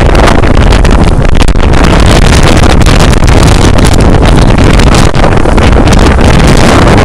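Storm-force wind buffeting the microphone, a loud, steady rumbling roar with no let-up, likely mixed with waves breaking on the shore.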